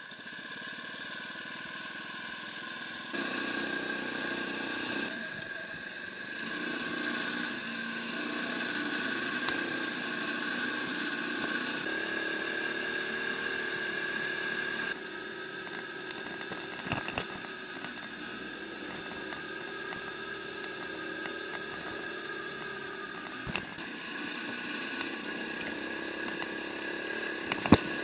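Newly fitted four-stroke 144F engine on a motorized bicycle, running steadily under way, with a few abrupt changes in level and a few short clicks.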